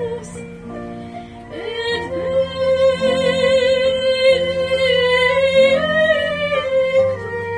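A woman singing in a classical, operatic style over soft instrumental accompaniment, sustaining a long note with wide vibrato through the middle.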